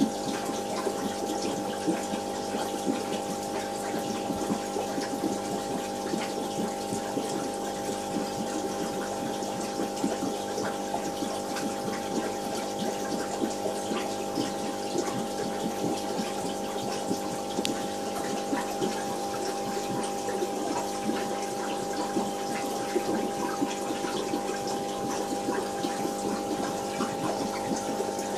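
Aquarium pump running with a steady hum of several tones, over constant water noise sprinkled with small ticks.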